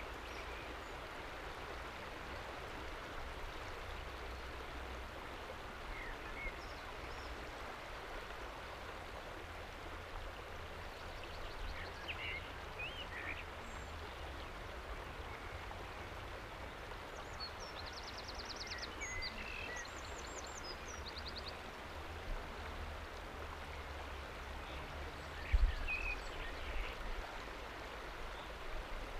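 River water flowing and lapping over a flat rock shelf: a steady rushing over a low rumble. A few faint bird chirps and a quick high trill come through the middle, and there is a single low thump near the end.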